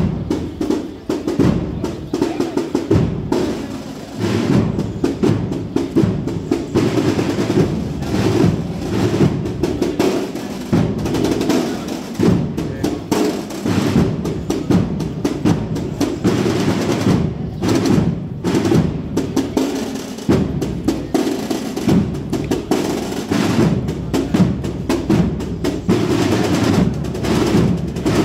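Processional band (agrupación musical) playing a Holy Week march, its snare drums rolling and striking in a steady rhythm with bass drum underneath.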